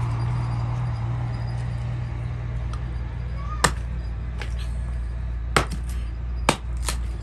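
A steady low hum with four sharp clinks in the second half, like dishes and cups being handled.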